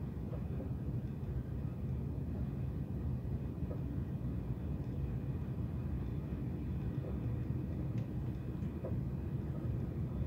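Inside a TGV passenger car, the train running with a steady low rumble and a few faint light clicks.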